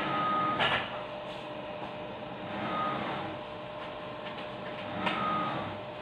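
A short electronic beep repeating about every two and a half seconds, with a faint steady hum underneath and a couple of brief scuffs or knocks.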